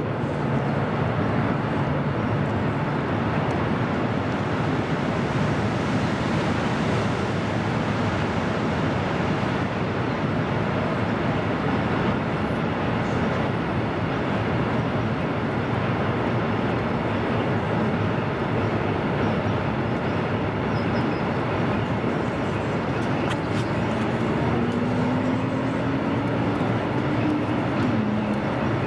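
Freight train of open coal wagons rolling past, a steady rumble and clatter of steel wheels on the rails. A faint tone rises near the end.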